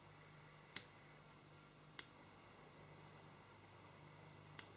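Near silence broken by three small, sharp clicks: about a second in, at two seconds, and near the end, the first the loudest. They come from handling at a fly-tying vise.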